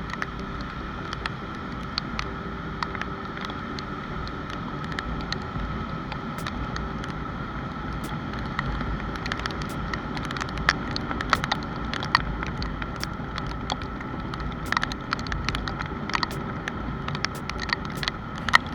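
Honda CB150R motorcycle's single-cylinder engine running with a low rumble and a steady hum, with many short sharp ticks scattered through, more of them in the second half.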